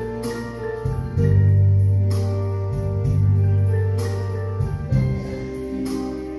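Electronic keyboard with an organ sound playing a hymn accompaniment: sustained chords over a bass line that moves to a new note every second or two.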